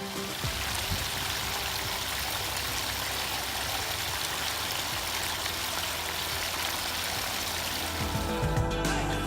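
Water of a pondless waterfall cascading and splashing in a steady rush. Music comes back in near the end.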